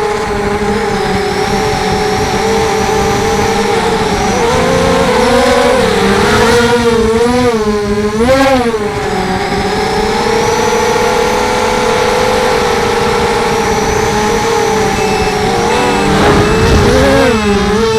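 Whine of a ZMR250 quadcopter's brushless motors and Gemfan 5045 propellers heard from on board, mostly steady, with its pitch rising and falling as the throttle changes. Near the end a regular high beeping starts over it.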